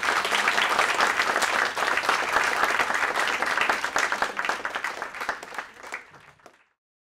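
Audience applauding, many hands clapping, tapering off and fading out near the end.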